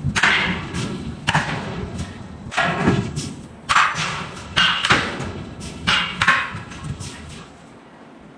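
Heavy forging hammer striking hot steel, about eight heavy blows in seven seconds, some in quick pairs, each ringing briefly over a steady low machinery rumble. The blows stop near the end.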